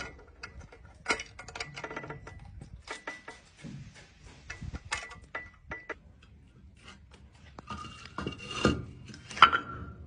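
Pebbles clinking against a glass jar of water as a crow drops them in to raise the water level: a loose series of sharp clinks, some with a short ringing tone, and a louder clatter near the end.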